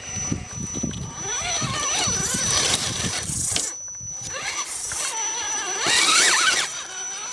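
Electric motor and gearbox whine of a scale RC rock crawler crawling up rock, its pitch rising and falling as the throttle is worked, with a brief lull about four seconds in.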